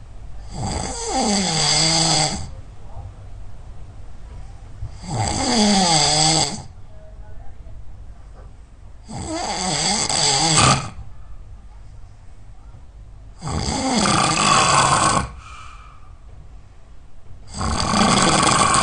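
A sleeping person snoring really loud: five snores come about four seconds apart, each lasting under two seconds and falling in pitch.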